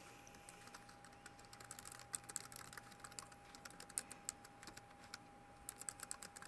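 Faint typing on a computer keyboard: quick, irregular key clicks, with a faster run of keystrokes near the end. A faint steady hum sits underneath.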